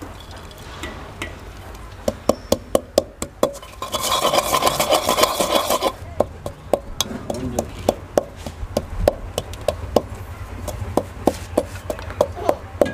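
Long wooden pestle pounding peppercorns and seeds in a clay mortar: a run of sharp knocks, two to three a second, broken about four seconds in by a couple of seconds of rough grinding as the pestle is worked around the bowl.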